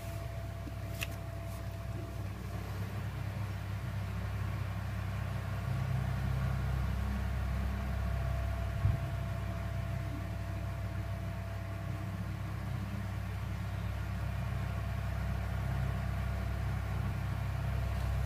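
A steady low hum, with a sharp click about a second in and a faint knock near the nine-second mark.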